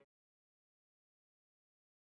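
Dead silence: the sound track is empty.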